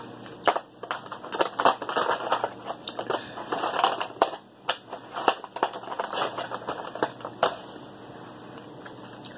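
King crab leg shells being cracked and snapped apart by hand: a rapid, irregular series of sharp cracks and crunches that stops about seven and a half seconds in.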